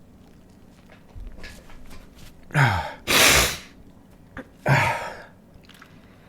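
A man sneezing, brought on by tickling the inside of his nostril with a stiff paper tag. About two and a half seconds in, a drawn-in voiced 'ah' falls in pitch and breaks into a loud, forceful sneeze. A second, shorter voiced burst follows about a second and a half later.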